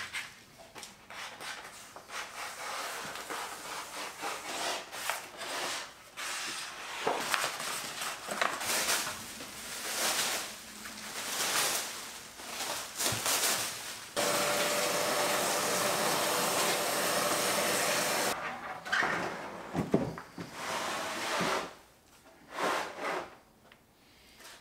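Handling noises while fitting a curved wooden skirting board: irregular rustling, rubbing and scraping, including plastic wrap crinkling as it is pulled off the board. About halfway through, a steady whirring hiss with a faint hum runs for about four seconds and then stops suddenly.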